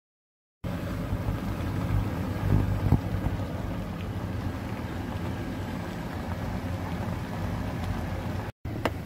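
Cabbage, minced pork and mushrooms cooking in a pan on the stove: a steady sizzling, simmering noise over a low rumble, starting about half a second in and cutting out briefly near the end.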